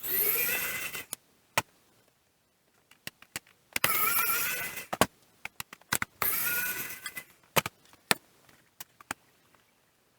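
Small electric screwdriver whirring in three bursts of about a second each, backing out screws, with sharp clicks of screws and tools between the bursts.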